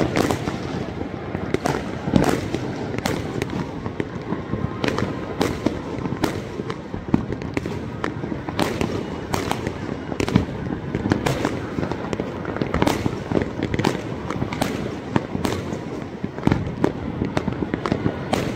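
Many fireworks and firecrackers going off at once across a city: a continuous din of distant explosions with irregular sharp bangs, a few every second.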